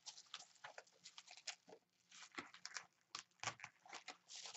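Plastic bubble wrap crinkling and crackling as it is pulled off a small glass e-liquid bottle, in quick irregular crackles with a short lull about two seconds in.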